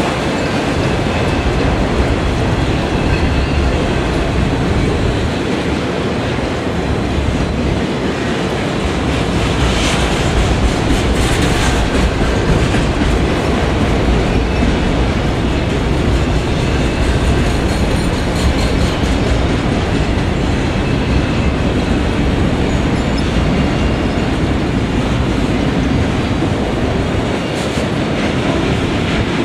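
Autorack freight cars rolling past at track side, their steel wheels running steadily on the rails.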